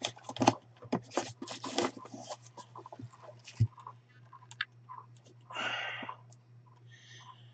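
Small cardboard box being opened and its contents handled: quick rustles and scrapes of cardboard flaps, a single thump about three and a half seconds in, and a longer sliding rasp near six seconds as things are drawn out of the box.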